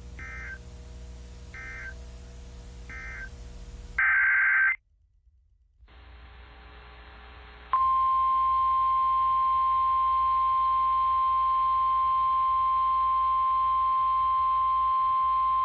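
Emergency Alert System SAME data bursts: three short, harsh bursts about a second and a half apart, then a louder, longer burst a few seconds in. After a short gap comes a steady single-pitched alert tone of about 1 kHz that lasts about nine seconds, the NOAA Weather Radio warning alarm tone that announces a new warning.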